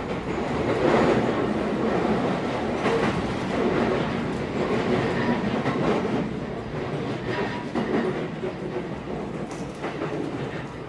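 Running noise inside the cabin of a JR East E131-1000 series electric train in motion: a steady rumble of wheels on the rails.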